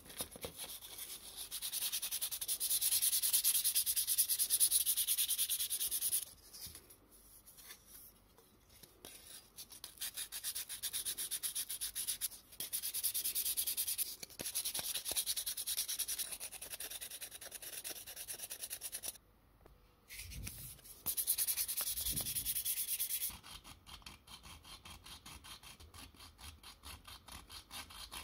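Abrasive paper rubbed rapidly back and forth on the bare tin body of a 1950s toy car, in spells of a few seconds with short breaks. The strokes are lighter and more evenly spaced near the end.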